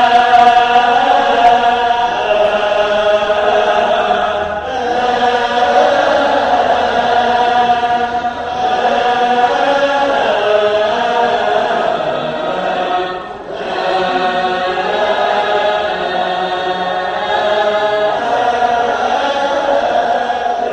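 Ethiopian Orthodox hymn chanted by a choir of voices in unison, long held phrases with brief pauses between them.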